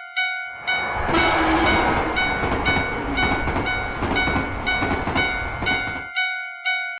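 Japanese railroad crossing bell ringing at about two strokes a second while a train rushes past over the crossing. The train sound swells in about half a second in, nearly drowns the bell, and cuts off abruptly about six seconds in, leaving the bell ringing alone.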